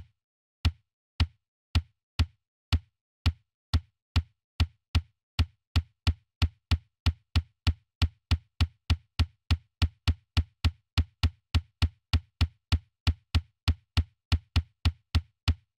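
Repeated single knocks, each a sharp click over a low thump, in an even beat that speeds up from under two a second to about three a second, with dead silence between strokes.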